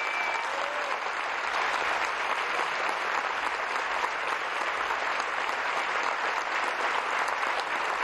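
Audience applauding steadily, a dense even clatter of many hands.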